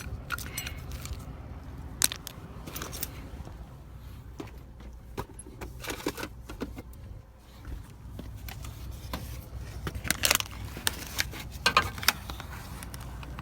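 Irregular small metallic clicks and rattles from hand work on a car's exterior door handle and its lock linkage inside the opened door, bunching into a quicker cluster near the end.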